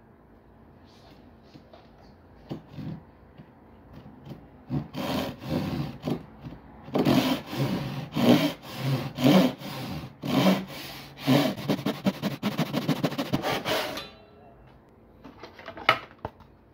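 Irwin hand saw cutting across a softwood board: a few light strokes start the kerf, then steady back-and-forth strokes that quicken into short, fast strokes near the end until the cut stops. A sharp knock follows shortly after.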